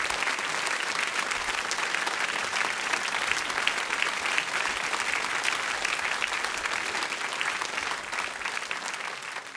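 Theatre audience applauding, a dense steady clatter of many hands clapping that fades down near the end.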